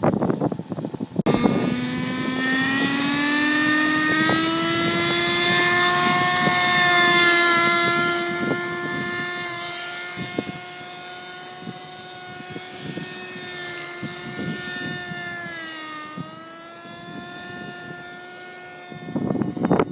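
Radio-controlled model helicopter's petrol engine and rotor running with a clear whining pitch that rises over the first few seconds as it lifts off, then holds steady. The pitch dips briefly near 16 seconds, and the sound grows fainter as the helicopter flies away. It opens with about a second of rushing noise.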